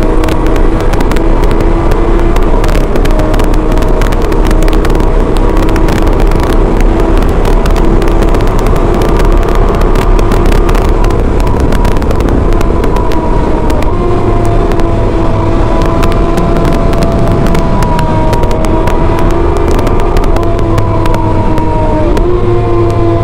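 Motorcycle engine running steadily at cruising speed under a rush of wind noise. The engine note climbs a little about fourteen seconds in and again near the end.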